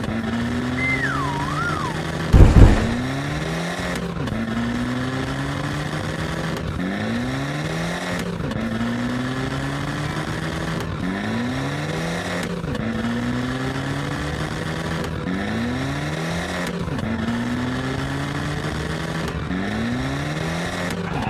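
Cartoon racing-car engine sound effect, revving up over and over, with a rising sweep about every two seconds. A whistle-like glide comes about a second in, and a short loud hit at about two and a half seconds.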